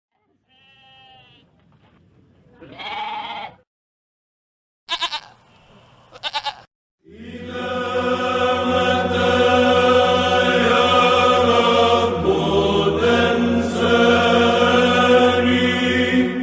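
A goat bleats several times in short, separate calls, some with a rapid quaver. About seven seconds in, chanting begins over a low held drone and continues steadily.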